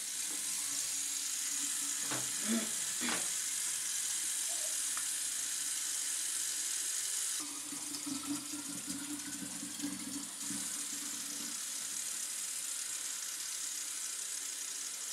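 Fresh water running steadily into a small plastic guinea pig drinking bottle as it is filled, with a few light knocks of the bottle about two to three seconds in.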